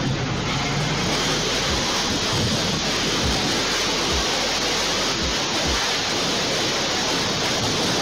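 Tornado wind rushing through a building: a loud, steady rushing noise, with low thumps of wind buffeting the phone's microphone now and then.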